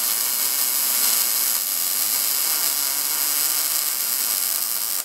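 Wire-feed (MIG-style) welding arc running a continuous bead along the corner seam of a steel smoker box: a steady, even hiss-and-crackle that stops suddenly when the trigger is released.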